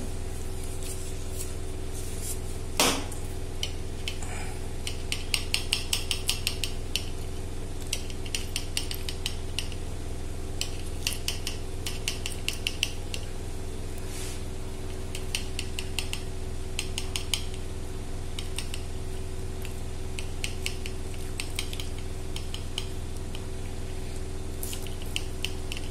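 Knife blade cutting a soft dhokla and clicking and scraping against the plate in runs of quick ticks, over a steady low hum.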